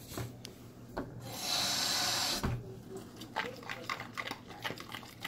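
A hiss at the waffle maker, lasting about a second and a half, then light irregular clicking and crackling.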